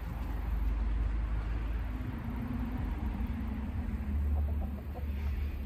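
Chickens clucking faintly over a steady low rumble, with a faint drawn-out hum through the middle.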